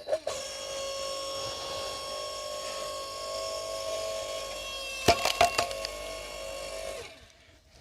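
A 5-ton log splitter running as its ram drives through a log, a steady whine; about five seconds in the wood gives with a quick series of sharp cracks as it splits, and the machine stops about two seconds later.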